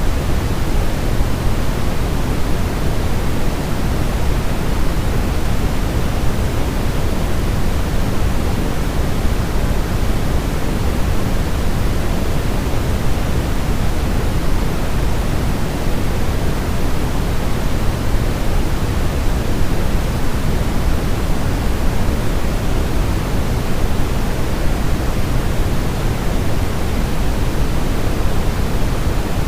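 Steady electronic sleep noise: an even, unchanging hiss with more weight in the bass than in the treble, made to imitate the sound of the womb.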